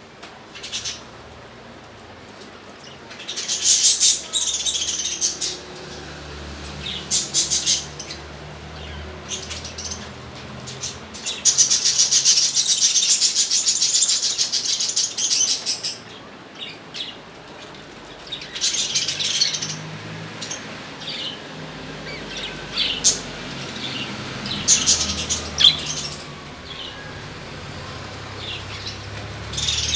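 Pet birds chirping and chattering in bursts of a few seconds, with scattered single chirps in between. The longest and loudest burst comes around the middle.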